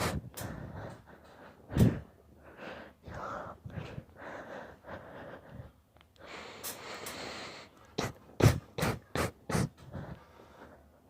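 A man in a sneezing fit: sharp, sudden sneezes, a strong one about two seconds in and a quick run of four from about eight and a half seconds in, with gasping, panting breaths between them.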